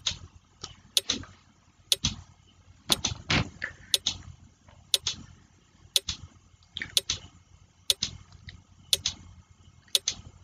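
Countdown timer's clock-ticking sound effect, giving a close pair of ticks about once a second.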